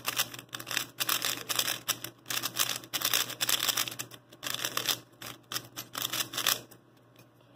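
Rapid plastic clicking and clacking of a stickerless 3x3 puzzle cube being turned fast in a solve. The cube is new and dry out of the box. The turning stops near the end.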